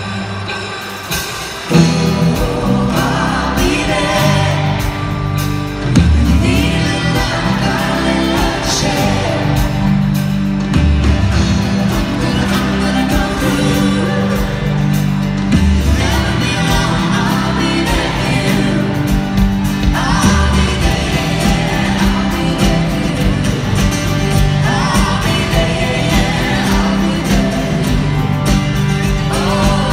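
Live amplified music with singing, heard from the stands of a large arena hall; after a quieter opening the full band and voices come in about two seconds in.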